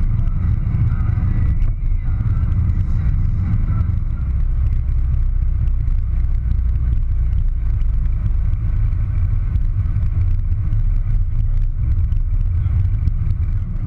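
Steady low drone of a vehicle driving at road speed, heard from inside the cab: engine and tyre noise.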